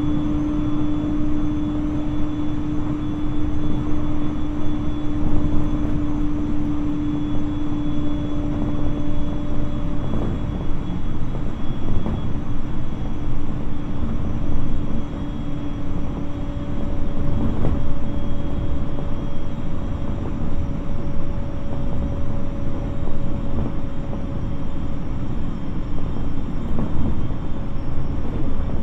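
701-series electric multiple unit with renewed VVVF inverter drive running along the line, heard from inside the passenger car: a steady rumble of wheels on rails with a constant motor and gear hum whose pitch shifts about ten seconds in.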